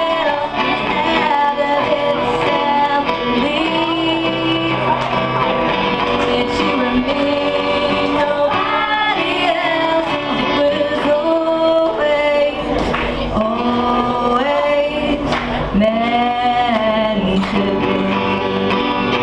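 A song: male and female voices singing a melody over guitar accompaniment.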